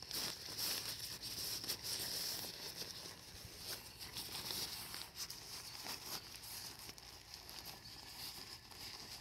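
Nylon fabric of a deflated Pouch Couch air lounger rustling and crinkling as it is stuffed into its nylon carry bag, louder in the first few seconds.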